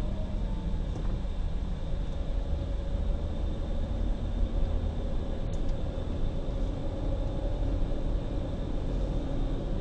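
Steady engine and road rumble of a car driving, picked up by a dashcam microphone inside the cabin.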